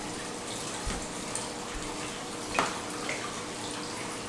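Liquid poured from a plastic jug into a skillet on the stove, with a steady watery hiss from the pan. A single sharp knock comes about two and a half seconds in.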